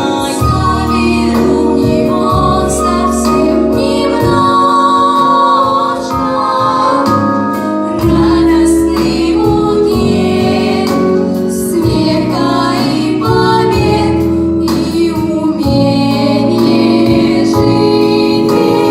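A vocal ensemble of female voices singing a song together over an instrumental accompaniment.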